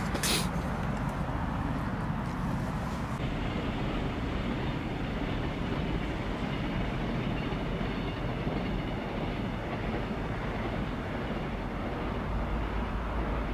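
A train running steadily, heard as a continuous low rumble with a rushing hiss; the high part of the hiss drops away about three seconds in.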